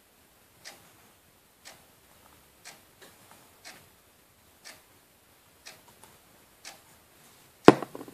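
Clock ticking steadily, about once a second, with one louder knock near the end.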